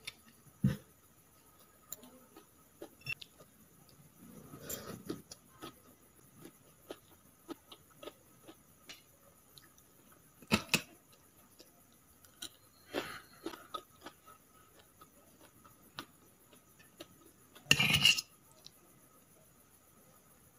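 A metal fork clinking and scraping on plates, in scattered sharp clicks and short clatters, with a louder clatter near the end, amid soft chewing of noodles.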